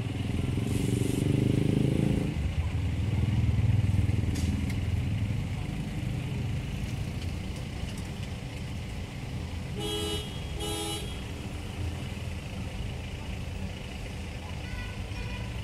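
Street traffic: motor vehicle engines running and passing close, loudest in the first few seconds, with two short horn honks about ten seconds in.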